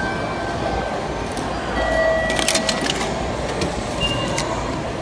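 An automatic ticket gate clicks quickly as it draws in a paper ticket and passes it back out, over the steady hubbub of a station concourse. Short electronic beeps come from the gates.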